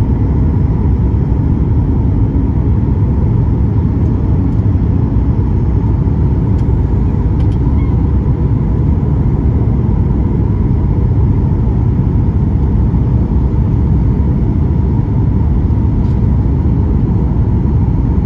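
Steady cabin rumble of a Boeing 737 MAX 8 descending on approach, heard inside the cabin at a window seat over the wing: CFM LEAP-1B engine noise mixed with airflow, with a faint steady tone above it. A few faint clicks sound a few seconds in.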